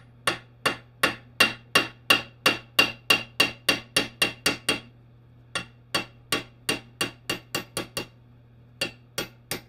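Ball-peen hammer tapping a metal drift to drive a needle bearing out of the bore of a Wheel Horse 8-speed transaxle case: sharp ringing metallic taps about three a second, a short pause about five seconds in, a second run of taps, then a few last taps near the end.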